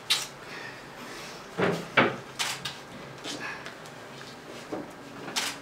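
A handful of scattered sharp clicks and knocks in a small room, the loudest two close together about two seconds in.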